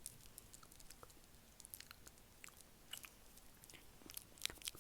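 Close-miked ASMR mouth sounds: quiet, wet lip and tongue clicks coming irregularly, a few at a time, with a quick louder cluster near the end.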